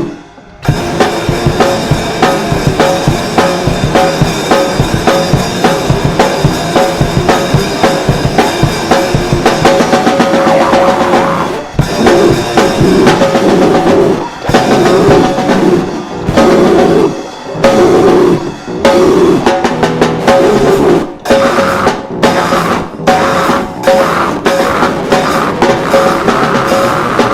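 A band playing loud music, driven by a drum kit with bass drum and snare, with a few short breaks in the playing.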